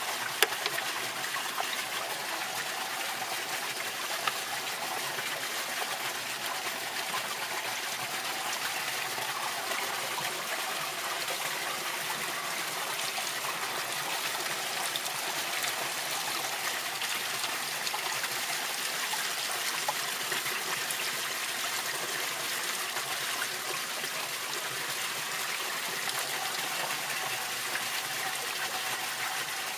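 Pond water pouring out of a bulkhead fitting and splashing into a homemade aquarium-tank pond filter, a steady splashing and trickling. Two sharp knocks in the first few seconds.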